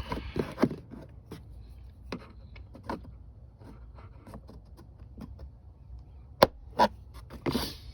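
Small plastic trim piece on a Jeep Wrangler JL taillight being handled and pressed back into place: a run of light clicks and taps, then two sharp snaps close together near the end as it pops in, followed by a brief rustle.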